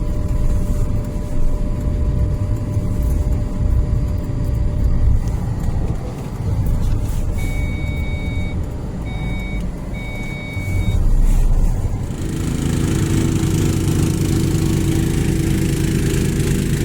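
Car engine running with a low rumble as the car is manoeuvred in deep snow. Electronic beeps sound on and off for a few seconds midway. From about twelve seconds in, a steadier, louder engine hum takes over.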